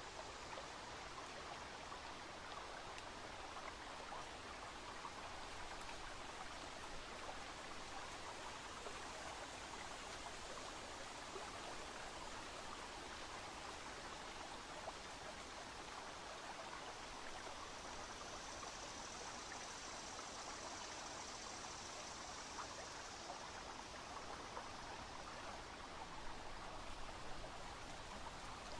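Rio Grande flowing past the bank: a faint, steady rush of moving river water. A faint higher hiss joins for several seconds past the middle.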